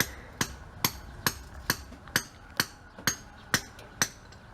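Hammer blows struck at an even pace, about two a second, each with a short bright ring.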